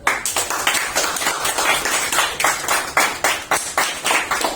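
A few people clapping in applause, sharp uneven claps several to the second.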